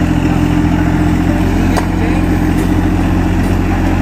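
A steady low motor or engine hum, with one short click about two seconds in.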